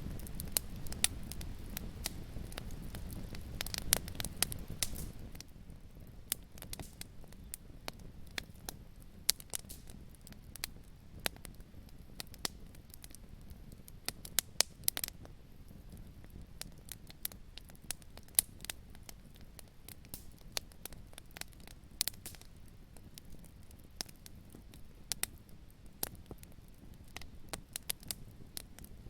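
Wood fire crackling, with irregular sharp pops and snaps over a low rumble that drops away about five seconds in.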